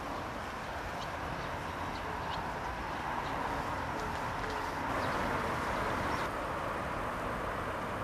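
Steady outdoor background noise that swells a little about five seconds in, with a few faint, short, high chirps.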